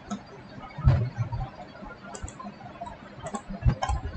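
Computer mouse clicks: several sharp, separate clicks spread across the few seconds, a couple of them with a dull low thump.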